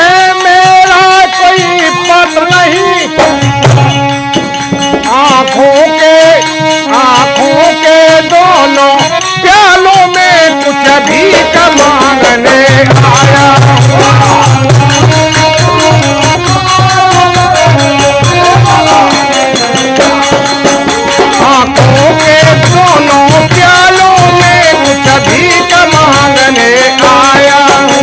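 Folk devotional music with a harmonium, a dholak barrel drum and small hand-held cymbals jingling in a fast steady rhythm, and a man singing. The dholak's deep bass strokes come in stretches, heaviest in the middle and near the end.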